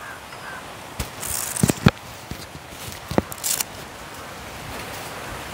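Kitchen handling as chopped vegetables and leaves are put into a cooking pot: a few sharp knocks and clicks about a second in and again around three seconds in, with brief rustles between them.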